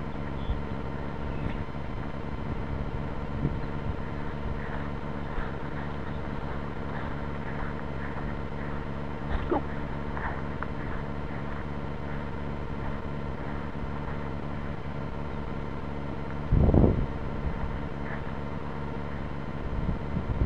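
Steady electronic hum and hiss from a cheap spy-glasses camera's built-in microphone, with a few faint short chirps, and a brief loud rumble, such as wind or handling on the microphone, about seventeen seconds in.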